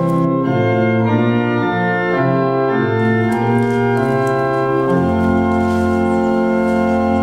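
Background organ music: slow, held chords that change every second or so, with a deep bass note coming in about five seconds in.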